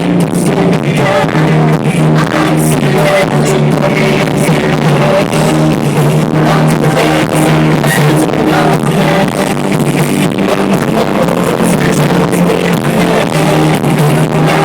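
Loud live pop-rock band music played through a concert sound system: a heavy sustained bass line and drum hits under the full band, without a break.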